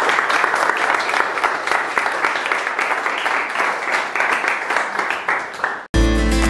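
Audience applause, a steady patter of many hands clapping that tapers a little, then cuts off suddenly near the end as acoustic guitar music begins.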